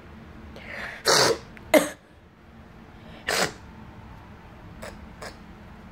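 A person coughing: three short, sharp bursts about a second in, just after, and near the middle, then two faint clicks near the end.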